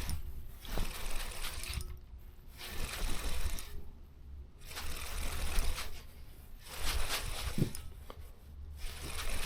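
A spinning reel being cranked in spurts, about five stretches of winding with short pauses, as a big crappie is reeled in. A low rumble runs underneath.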